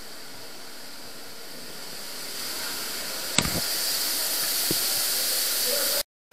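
Steady rushing of the underground Neglinka river's water flowing through its collector tunnel, growing louder about halfway through. A sharp click sounds a little after that and a lighter one near the end, and the sound breaks off just before the end.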